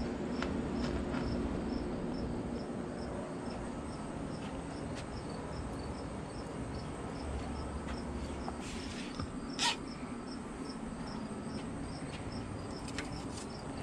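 Crickets chirping in an even rhythm, a few chirps a second, over steady low background noise, with a few light clicks of metal tongs setting burger patties on the grill grates.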